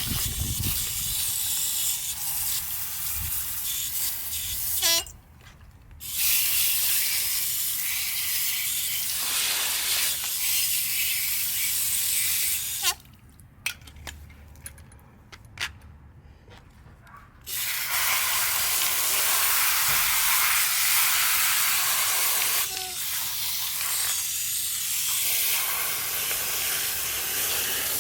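Compressed air hissing in long blasts that stop twice, once briefly and once for about four seconds, as the chem-dipped carburetor parts are blown dry.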